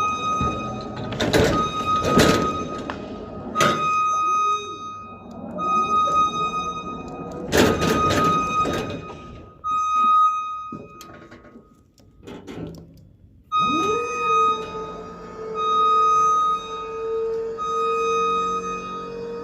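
Background music with a repeating high note, broken by several heavy thuds in the first half. From about two-thirds of the way through, a long held tone comes in.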